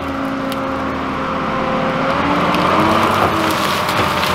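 Front end loader engine running under load, its pitch rising about halfway through as it revs to push into the trees, with a few snaps of branches.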